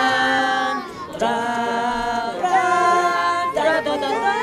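Voices singing long held notes with no instruments, with a short break about a second in.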